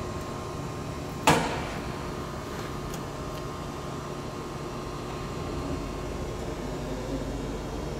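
A single sharp click about a second in from the controls of a Koike Aronson HS45VF welding positioner, over the steady hum of its powered-up electrical cabinet and drive with a thin high tone.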